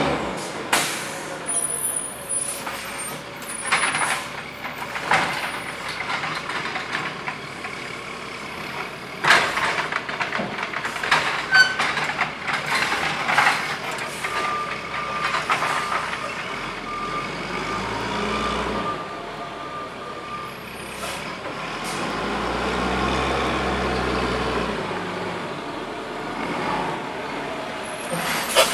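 Sterling Condor garbage truck with a Heil Formula 7000 automated side-loader body: its diesel engine running and pulling away, with sharp air-brake hisses and clunks through the first half. A steady high beeping tone sounds for several seconds midway, and the engine rumble swells twice near the end as the truck drives.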